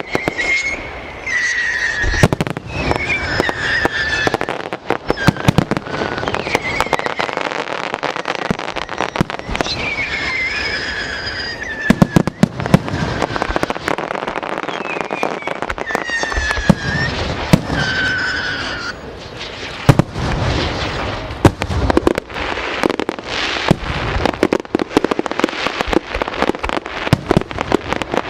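Aerial fireworks going off in quick succession, sharp bangs mixed with crackle, with a brief lull about two-thirds of the way through.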